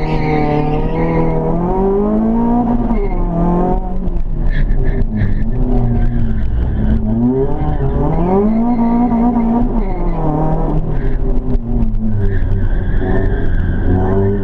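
Renault Clio's engine heard from inside the cabin, driven hard: its pitch climbs under acceleration and falls back on lifts and gear changes, several times over.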